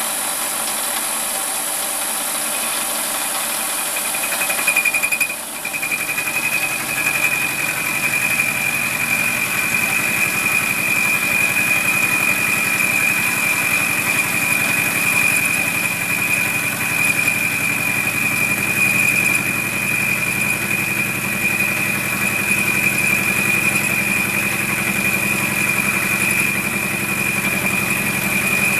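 WARCO lathe running with a milling cutter in its spindle, the cutter biting into the tool-post block from about five seconds in and holding a steady high-pitched cutting tone over the motor for the rest of the pass. The cut is a climb-milling cut.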